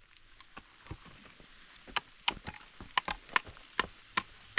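A hammer striking a hollow concrete block to chip and trim it: a run of sharp, irregular knocks, faint at first and louder and quicker from about two seconds in.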